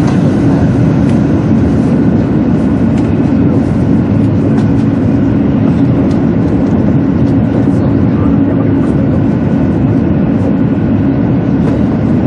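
Interior running noise of a 200 series Shinkansen at speed: a loud, steady rumble with a low hum, a faint higher tone and faint ticks here and there.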